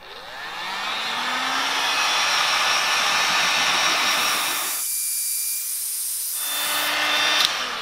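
DeWalt heat gun running, its fan spinning up over about the first second and then blowing steadily as it shrinks clear heat-shrink tube over a wire label. About five seconds in the sound briefly thins to a hiss. A click comes near the end as it winds down.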